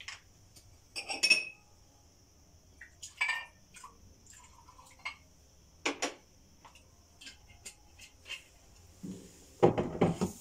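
Kitchenware being handled: scattered clinks and knocks of glass and dishes, with one ringing clink a little over a second in. A louder cluster of knocks comes near the end as containers are moved about on a cupboard shelf.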